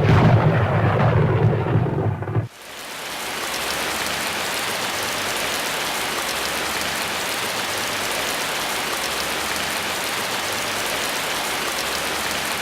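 A loud, deep rumble cuts off suddenly about two and a half seconds in. A steady hiss of rain then fades in and holds evenly.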